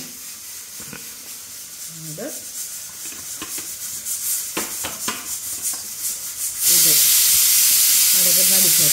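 A steady hiss that slowly grows louder, then a much louder, even hiss that starts suddenly about three-quarters of the way through and holds. A few light clinks and faint voices sit underneath.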